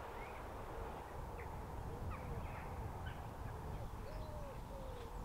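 A bird giving a series of short, low hooting or cooing calls, each rising and falling, with a few brief higher chirps from small birds, over a steady low rumble.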